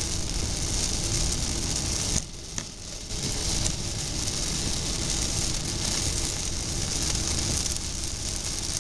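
Heavy rain hitting a car's roof and windshield over tyre and road noise, heard from inside the car at highway speed. The noise drops off briefly a little over two seconds in, then returns.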